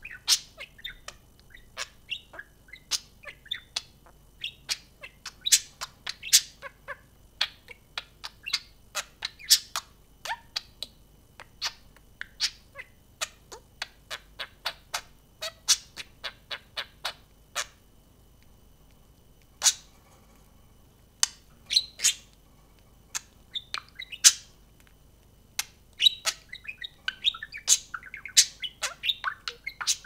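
Budgerigars chirping in a string of short, sharp calls. The calls lull for a few seconds past the middle, then turn into a denser, continuous warble near the end.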